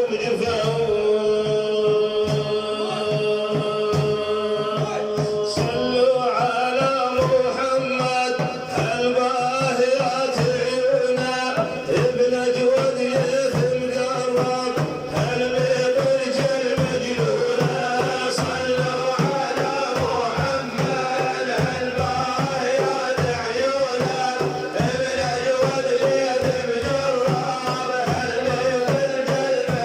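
Arabic devotional song in praise of the Prophet, a male voice singing over a steady beat of hand drums, with a long held note in the first few seconds.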